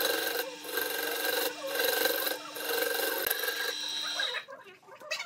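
Sandpaper held by hand against a segmented wooden vase spinning on a wood lathe: a dense rasping that swells and eases about once a second over the lathe motor's steady hum. The sanding stops about four seconds in.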